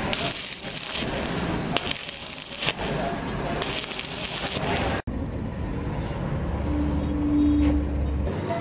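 Stick arc welding: the electrode's arc crackles and sizzles steadily on steel plate for about five seconds. It cuts off abruptly and gives way to a duller, steady low hum with a short steady tone near the end.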